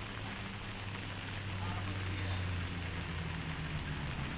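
Vehicle engine running close by, a steady low hum that sags slightly in pitch near the end, under a constant hiss.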